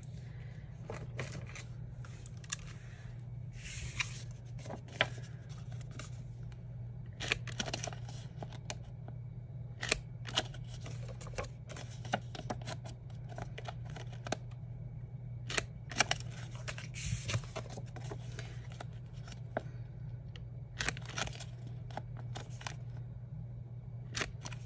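Hand-held Crop-A-Dile punch clicking and clunking over and over as it cuts disc-binding slots along the edge of planner pages, with paper handling between the strokes. The clicks come at irregular intervals, sometimes several close together, over a steady low hum.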